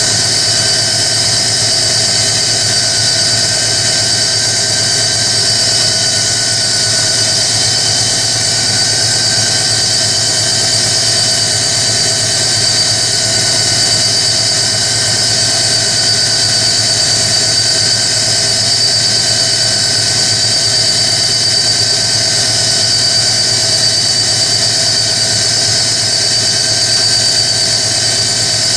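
Hoover Electronic A3172 washing machine spinning at a steady speed, its motor giving a constant high whine. The sound is a bit raspy, which the owners think a bit of lubrication might cure.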